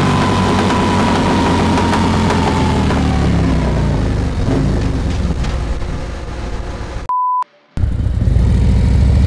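Harley-Davidson Milwaukee-Eight V-twin fitted with a Screamin' Eagle Stage II 511 cam kit, winding down from high revs with a slowly falling whine, then running lower. About seven seconds in a short high beep sounds and the audio drops out briefly, then the V-twin runs steadily again as the bike pulls away.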